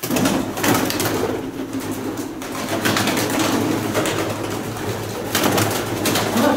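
Pigeons cooing continuously, the sound beginning suddenly and staying loud throughout.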